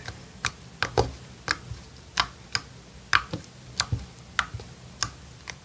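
Clay slime being worked by hand, giving off sharp clicks and pops at an irregular pace of roughly three a second.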